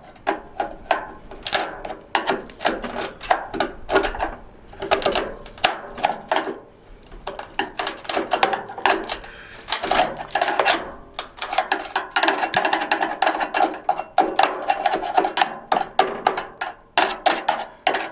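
Rapid, irregular clicking and knocking of hand tools working on an old pickup's door hardware, as a stuck door glass and vent window are worked loose.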